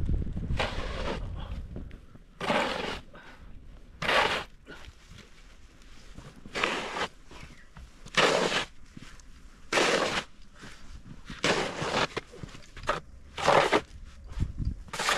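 Snow crunching in a slow, uneven series of short, crisp strokes, about one every second and a half.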